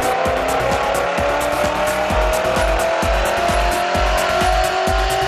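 A BMW M5 E39's 4.9-litre V8 running under load on a chassis dyno, its pitch climbing slowly and evenly as it pulls through the rev range. Background music with a steady beat, about two thumps a second, plays over it.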